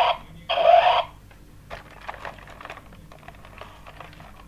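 Robot dinosaur toy: two short loud electronic sound effects from its built-in speaker in the first second, then the faint, rapid clicking of its plastic gear motors as it moves its legs, head and tail.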